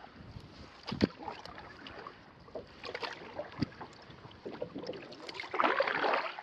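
Canoe being paddled: water swishing and dripping around the paddle, with a sharp knock about a second in and a louder splashing stroke near the end.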